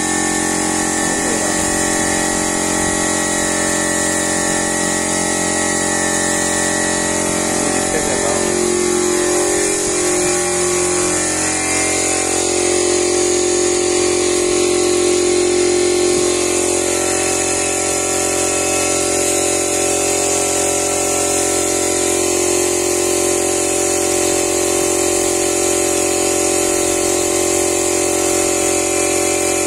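Small portable piston air compressor running steadily with a pitched motor hum, with air hissing from the spray gun as it sprays PU polish onto a wooden door.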